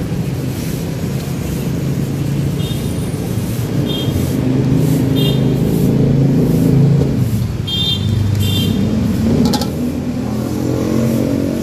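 Street traffic running close by: a steady low rumble of engines, with one engine rising in pitch near the end as it speeds up.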